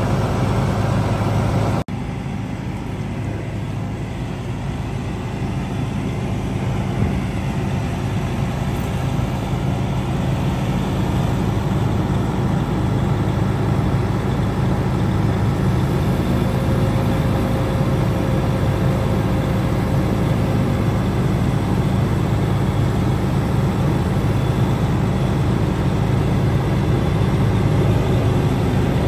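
Detroit Series 60 six-cylinder diesel of a Freightliner Columbia running steadily, powering the hydraulics of a Hiab knuckleboom crane as the boom moves.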